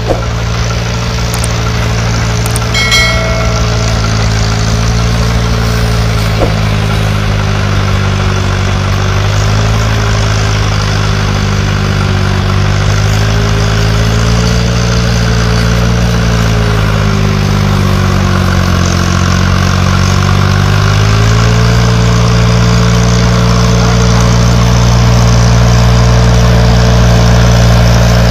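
Diesel tractor engine running steadily under load, its pitch dipping and rising partway through and growing slightly louder toward the end.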